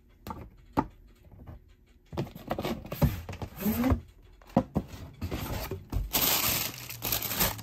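Cardboard sneaker box and its tissue paper being handled: scattered clicks and knocks, then crinkling and rustling of the tissue paper, loudest in a long burst near the end.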